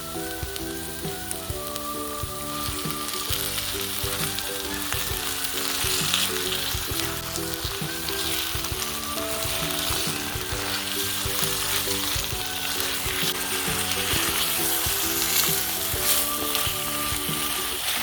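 Food frying in a pan: a steady sizzle with dense crackling that builds over the first few seconds.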